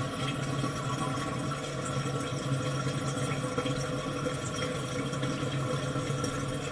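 Toilet water running steadily, with an even hiss and a constant hum.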